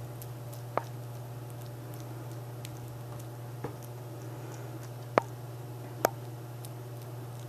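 A few sharp clicks, four of them clear and spaced a second or more apart, with fainter ticks between, over a steady low hum.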